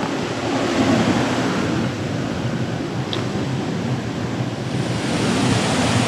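Mountain stream running over rocks and small cascades: a steady rush of water.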